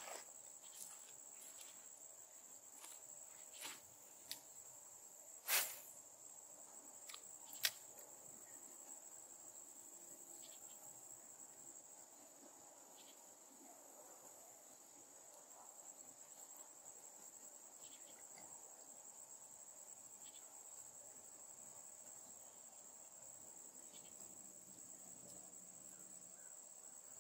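Insects trilling faintly and steadily at one high pitch, with a few sharp clicks over it, the loudest about five and a half seconds in.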